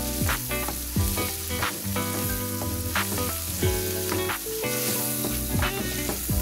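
Chopped aromatics sizzling as they are stir-fried in oil in an aluminium wok, with a spatula scraping and knocking against the pan about once or twice a second. Background music with steady notes plays under it.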